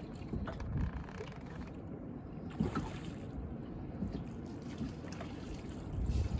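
Wind buffeting the microphone and water lapping against the hull of a drifting boat, with a couple of soft thumps, one about two and a half seconds in and one near the end.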